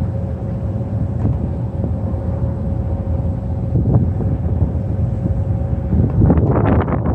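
Wind buffeting a phone's microphone: a steady low rumble with a faint steady hum underneath, turning rougher and grainier about six seconds in.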